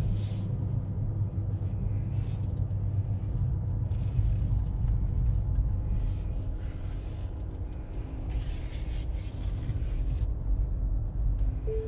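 Low, steady road and tyre rumble of an electric car, a Tesla Model 3 Performance, driving slowly, heard from inside the cabin, with no engine note.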